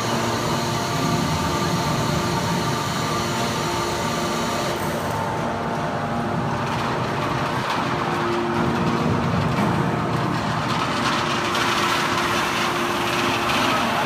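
Enerpat metal baler's hydraulic system running steadily: a constant machinery hum with a few held whining tones, and no strikes or pauses.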